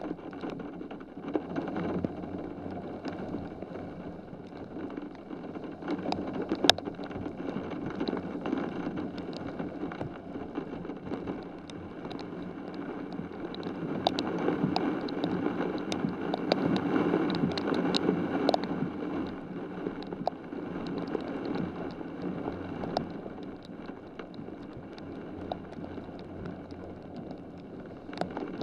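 Heavy rain pouring, with many sharp ticks of individual drops striking. It swells heavier about halfway through for several seconds, then eases back.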